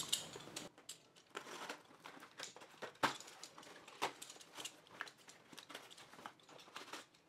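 Faint rustling and crinkling of a tape-wrapped cardboard parcel being slit open with a utility knife and its corrugated cardboard pulled apart, with scattered small scrapes and ticks.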